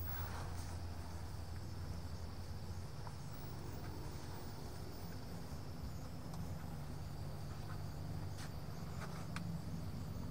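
Quiet steady background: a low hum with a thin, steady high-pitched trill above it, and a couple of light clicks near the end.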